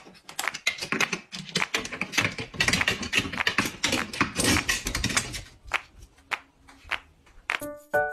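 A cat's claws and paws clicking and scraping on wooden ladder rungs as it climbs, a rapid, irregular run of taps and scratches.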